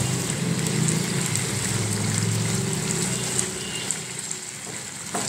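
Potato and pointed-gourd curry bubbling and sizzling in a frying pan on a gas burner, with a steady low hum beneath. The sound eases a little about three and a half seconds in.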